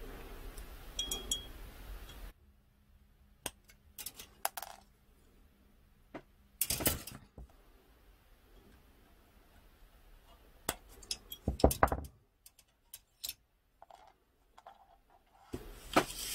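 Sharp clicks and snips of hobby side cutters clipping small plastic parts off a model-kit sprue, with light plastic clatter in between. The loudest snaps come about seven seconds in and in a quick cluster around eleven to twelve seconds in.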